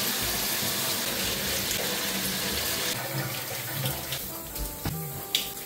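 Shower running: water spraying steadily from an overhead shower head and splashing, a little quieter after about three seconds.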